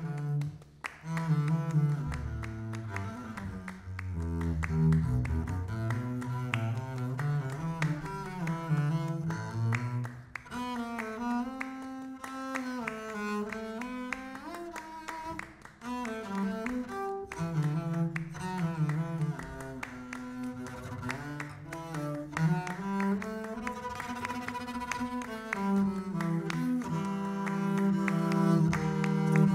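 Double bass played with the bow, a solo melodic line with slides between notes.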